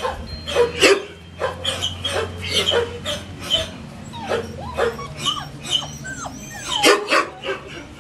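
Six-week-old collie puppies giving short high yips and barks in quick succession, with a few rising-and-falling whines in the middle.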